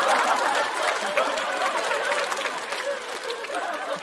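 Studio audience laughing and clapping after a joke, with many overlapping chuckles and voices, fading gradually.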